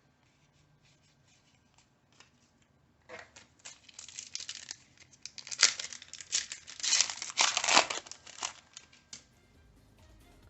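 Yu-Gi-Oh booster pack's foil wrapper crinkling and tearing open, a run of sharp crackles starting about three seconds in and stopping about nine seconds in, loudest near the middle.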